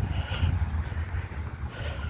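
Wind buffeting the microphone: a steady, rough low rumble, with no siren tone yet.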